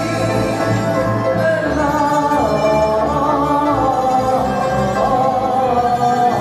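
Large choir singing a Greek oratorio with instrumental accompaniment, held chords moving from note to note.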